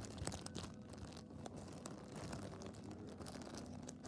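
Faint handling noise: rustling and crinkling with a few small clicks.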